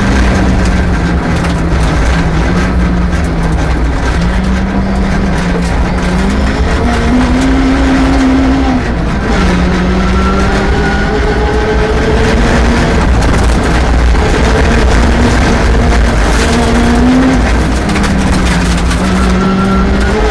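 Rally car engine running hard at speed, its note climbing and then dropping back several times as it shifts gear.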